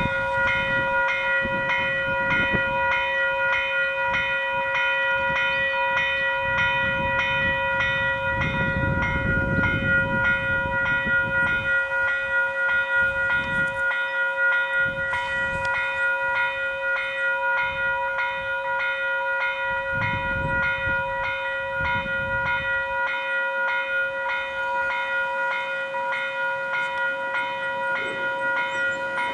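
Level crossing warning bell ringing continuously in rapid, even strokes, a bright metallic ring. Low rumbles rise and fade beneath it, around a third of the way in and again about two thirds in.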